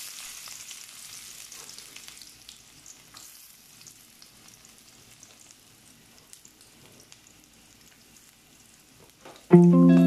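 Chopped garlic sizzling in hot fat in an aluminium wok: loudest at the start, just after it goes in, then fading to a soft sizzle with small crackles. About half a second before the end, loud music starts.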